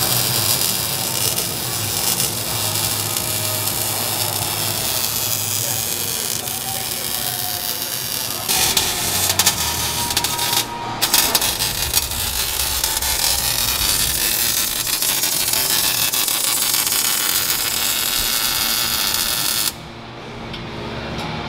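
A power tool grinding through the truck's steel exhaust pipe, giving a steady harsh hiss that changes abruptly several times, with a brief break about eleven seconds in and a sudden drop near the end.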